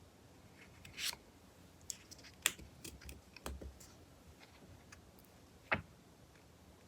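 Magazine pages being turned and handled: several short papery swishes and crinkles, about a second in, around two and a half to three and a half seconds in, and once more near the end.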